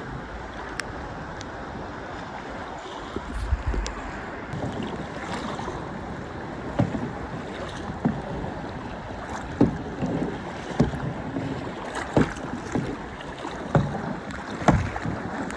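Kayak paddles splashing into the sea about once every second or so, over steady wind and water noise.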